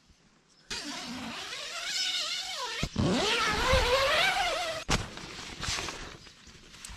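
Tent door zipper being unzipped in two long pulls: a rasping buzz that rises and falls in pitch with the speed of the pull, the second pull louder. Softer fabric rustling follows.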